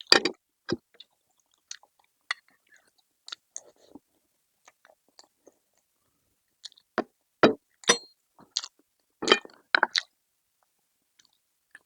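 Close-up eating sounds: a person chewing and biting food, with wet, sharp clicks coming in irregular bursts. The bursts are loudest just at the start and again from about seven to ten seconds in, with a quiet spell just before that.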